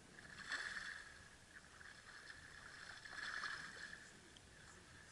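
Faint water splashing in two bursts, about half a second in and about three seconds in, as a hooked redfish thrashes at the surface beside the boat.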